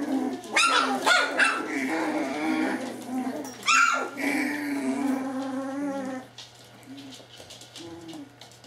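Springer spaniel puppies yapping and whining as they play, with sharp high yaps about half a second in, around one second and near four seconds, and drawn-out calls between; quieter in the last couple of seconds.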